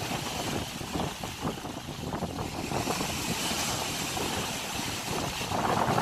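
Sea waves breaking and washing over shoreline rocks, foaming surf with constant splashing; a wave surges louder near the end.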